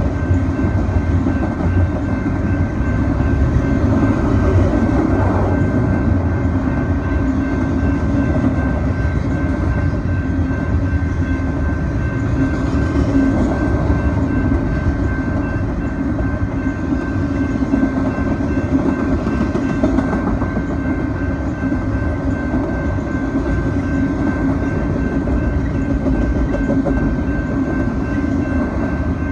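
Double-stack intermodal container train rolling past at a grade crossing: a steady rumble and clatter of the well cars' wheels on the rails. A thin, steady high tone runs through it.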